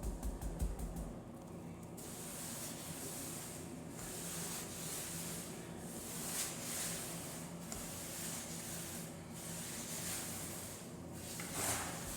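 Grout float scraping across tile in repeated sweeping strokes, each swelling and fading every second or two, pressing grout into the joints. A quick run of low knocks comes in the first two seconds.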